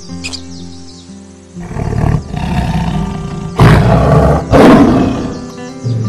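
A large animal roaring: a rough, noisy roar begins about a second and a half in and swells into two loud blasts near the middle, over background music.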